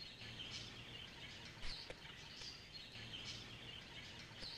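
Faint outdoor ambience of birds chirping, short calls coming about once a second over a low steady background noise, with one soft knock about one and a half seconds in.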